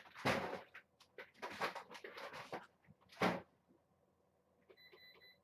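Irregular rustles and knocks from handling, then near the end a run of short, high electronic beeps from a digital thermostat's buttons being pressed to lower the temperature setting.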